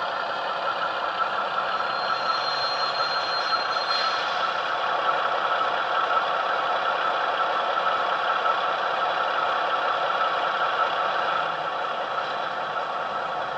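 Sound-fitted model of the Brush prototype diesel locomotive Falcon: the DCC decoder's recorded diesel engine sound played through the model's small speaker, running steadily as the locomotive draws to a stop. A thin high squeal runs from about two to four seconds in, and the engine sound drops a little near the end.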